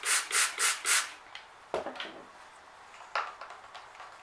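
Stir stick scraping around inside a plastic cup of green acrylic pour paint: five quick strokes in the first second, then two light knocks.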